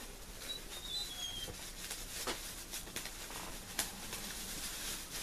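Handling noise as a taped cardboard prize box is opened and its contents pulled out: scattered light taps and rustles.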